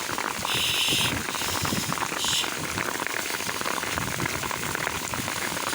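Heavy rain pattering close on the microphone: a dense, crackling patter of drops at a steady level, with two short hisses about half a second and two seconds in.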